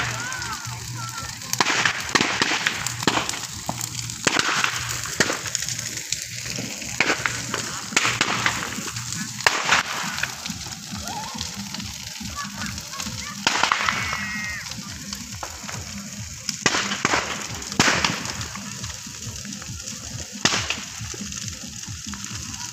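Large bonfire of dry brushwood and branches burning, crackling steadily with loud sharp pops every second or two.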